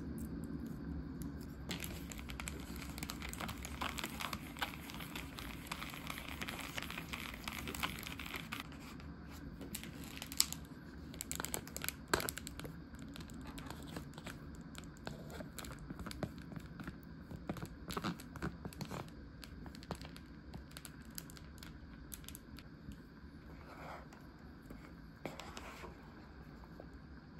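Plastic food packaging crinkling and tearing for several seconds as it is opened, then scattered light clicks and taps of the plastic.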